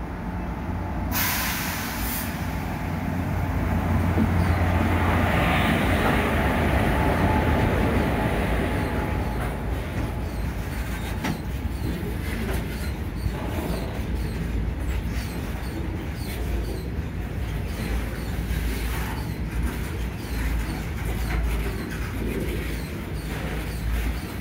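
Indian Railways electric locomotive hauling a freight train passes close by, with a low hum that is loudest a few seconds in. The freight wagons then roll past with a steady rumble and the repeated clatter of wheels over rail joints.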